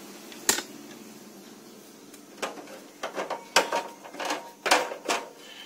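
Screwdriver and hand working on the sheet-metal frame inside an opened copier's paper-feed section: one sharp metallic click, then from about halfway an irregular run of clicks and knocks.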